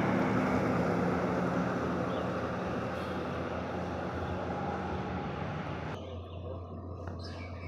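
Heavy truck engine and road noise, slowly fading. About six seconds in the high hiss drops away abruptly, leaving a steady low hum.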